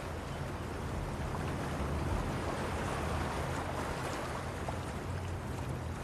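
Steady harbour ambience: an even wash of water noise with a low, level hum underneath.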